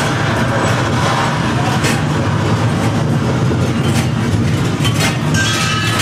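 Simulated earthquake re-creating the 1995 Kobe earthquake: a loud, continuous deep rumble with constant rattling and clattering.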